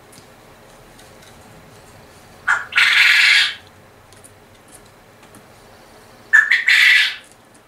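Male quail calling twice, about four seconds apart: each call is a short note followed by a longer, harsh one.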